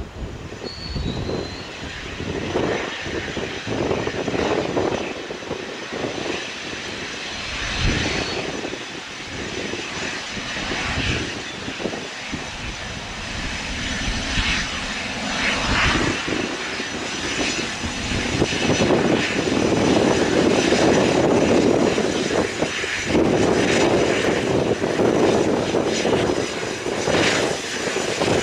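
Twin rear-mounted Pratt & Whitney Canada PW306D turbofans of a Cessna Citation Latitude business jet at low taxi power: a steady jet whine and rush that grows louder in the second half as the jet taxis closer.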